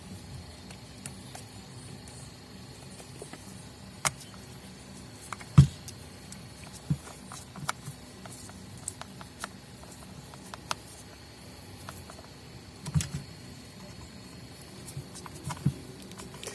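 Scattered clicks and knocks from handling the parts of an electric sander as it is put back together, the loudest knock about five and a half seconds in, over a faint steady hum.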